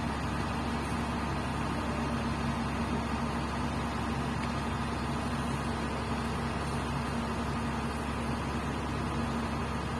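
Diesel engine of a Komatsu PC200 hydraulic excavator running at a steady, unchanging speed.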